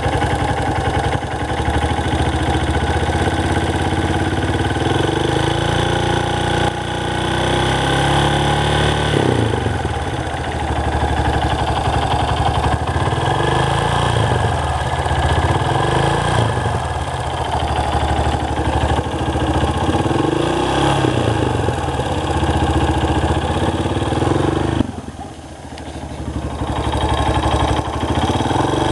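Engine running with a ticking noise, its speed rising and falling several times, with a brief drop in level near the end. The owner suspects a slack timing chain slapping, though he allows it could be the exhaust valves clicking.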